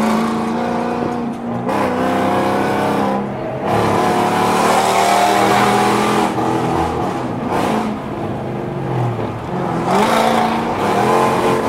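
Car engines running and revving on a highway, heard from inside a car's cabin; the engine pitch rises and falls as they accelerate and ease off, with a rise about ten seconds in.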